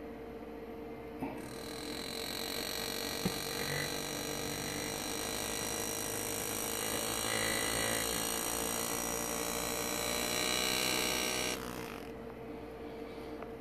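Power-assisted engraving graver buzzing steadily as it cuts into a pewter chalice. It starts about a second in and stops suddenly near the end.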